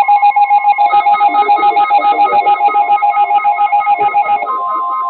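Electronic alert tone between weather warnings: a rapid, ringing, phone-like warble of several tones pulsing about eight times a second, with a steady single tone joining near the end.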